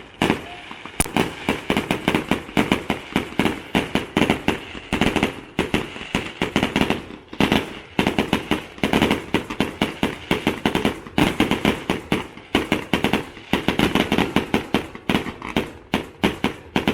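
Fireworks display in a rapid, continuous barrage: many sharp bangs and crackles a second with no pause, the loudest bangs coming near the end.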